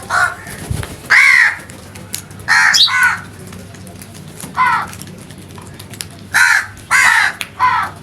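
Crows cawing: about eight loud, harsh caws at irregular intervals, some single and some in quick pairs.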